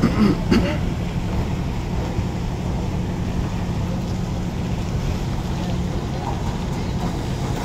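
Heavy diesel engine running steadily at a low rumble, from the mobile crane or the truck, while the crane lifts a shipping container. A couple of brief sharp sounds come in the first second.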